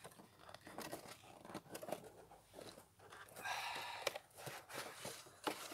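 Cardboard packaging being handled as a drill box is opened and its cardboard insert tray slid out: small scrapes and clicks, with a longer rustle about three and a half seconds in.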